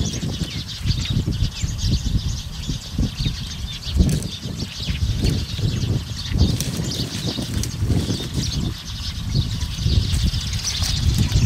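Dry leaves and twigs rustling and crackling as a young goat browses through brush, over an irregular low buffeting of wind on the microphone.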